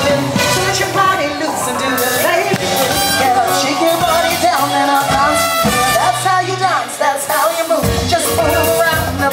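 Music with singing, loud and continuous.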